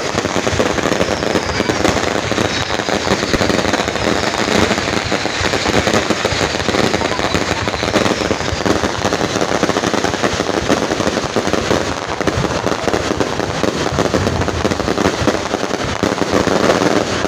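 Fireworks going off in a dense, continuous run of bursts and crackling pops, with no pause.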